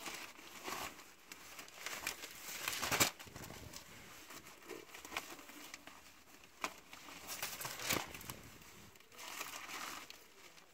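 Sheets of thin kite paper rustling and crinkling as they are lifted and turned over one after another. There are several louder rustles, the loudest about three seconds in.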